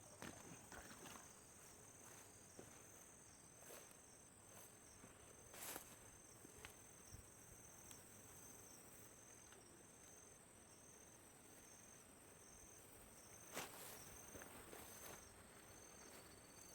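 Faint, steady high-pitched insect trilling, with a few soft clicks about six seconds in and again near fourteen seconds.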